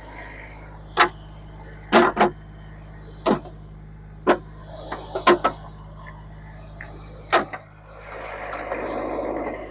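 About eight sharp knocks from hand-tool work, coming at irregular intervals, then a couple of seconds of rough scraping near the end.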